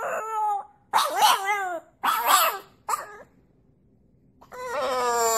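French bulldog puppy howling with its head raised: four short, pitched yowls in the first three seconds, then a longer howl starting about 4.5 s in that falls slightly in pitch.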